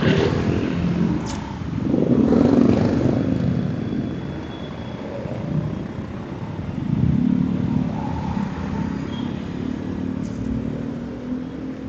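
Motorcycle engine running with road and wind noise while riding, swelling louder twice, about two seconds in and again about seven seconds in.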